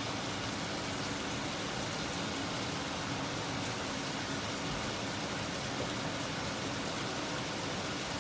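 Steady sizzling of pork stir-frying in a hot pan, with a faint low hum under it.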